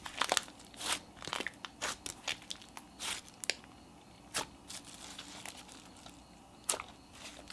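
Butter slime being pressed and kneaded by hand, giving irregular sharp clicks and pops. They come thick in the first few seconds, thin out, and bunch up again near the end.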